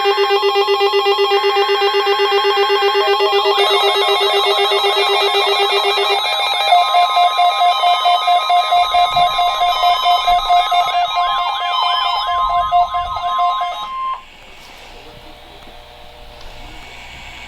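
NOAA Weather Radio's weekly warning-alarm test: weather radio receivers sound their alert alarms together, a tangle of overlapping pulsing beeps and warbling tones over the broadcast's steady 1050 Hz alert tone. Everything cuts off suddenly about 14 seconds in, leaving faint radio hiss.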